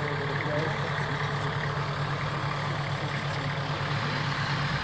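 Off-road SUV engine idling steadily, a low even hum.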